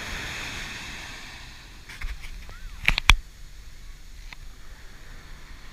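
Surf washing in and fading over the first second or so, then two or three sharp knocks close together about three seconds in, with low wave wash after.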